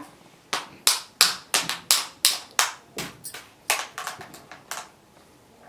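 Hands clapping in a quick, uneven run of about fifteen sharp claps, roughly three a second, stopping shortly before the end.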